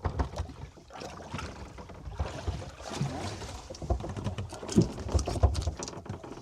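Sounds aboard a small fishing boat at sea: irregular knocks and clicks of gear being handled over low thumps and rumble of the hull on the water.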